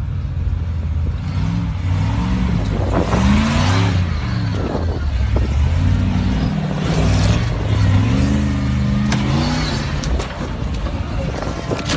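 Lifted 4x4 SUV's engine revving hard and unevenly while it climbs a steep rock ledge, its pitch rising and falling over and over as the throttle is blipped.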